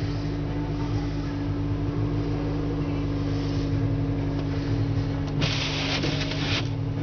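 Car idling, heard from inside the cabin as a steady low hum. About five and a half seconds in, the windshield wipers sweep once, scraping and shoving heavy wet snow across the glass for about a second.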